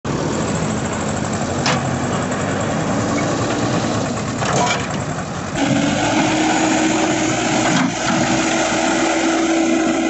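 JCB 3DX backhoe loader's diesel engine running steadily under work. About halfway through the sound shifts and a steady higher tone comes in over the engine as the machine drives on.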